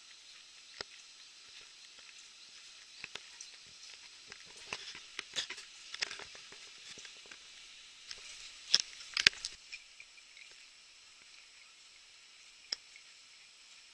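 Scattered clicks and rustles from a handheld camera being carried on a walk, over a faint steady hiss. The loudest handling noises come in a cluster around the middle.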